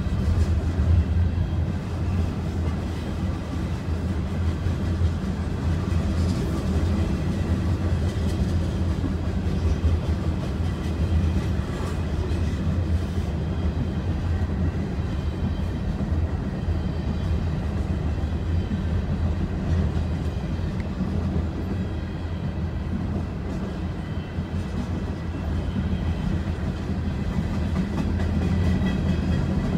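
Freight train's hopper cars rolling steadily past, a continuous low-pitched running noise heard from inside a parked vehicle.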